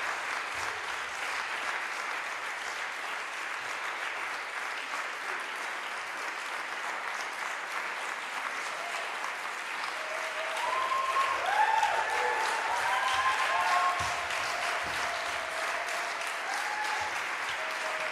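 Theatre audience applauding steadily. About ten seconds in, whoops and cheers rise over the clapping, the loudest part, and then ease back into plain applause.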